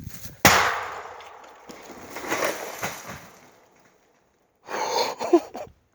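A quarter-stick firework blowing up inside a shut fridge: a single sharp bang about half a second in, followed by a long fading echo with a few smaller cracks or clatters over the next couple of seconds.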